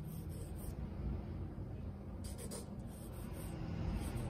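3B graphite pencil drawing light sketch lines on drawing paper, a soft scratching in a few short strokes.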